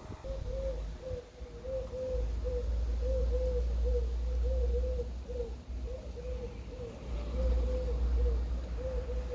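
A bird calling with short, low cooing notes, about two a second in short runs, over a steady low rumble.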